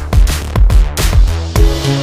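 Electronic dance music with a heavy bass and a steady thumping kick-drum beat.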